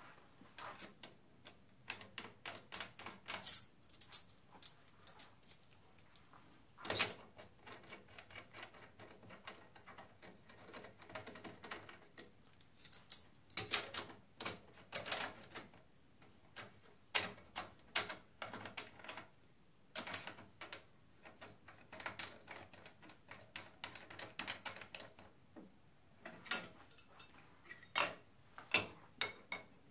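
Irregular metallic clicks and clinks of steel hand tools being handled: a drill bit being fitted into a milling machine's collet chuck and spanners used to tighten it. The machine's motor is not running.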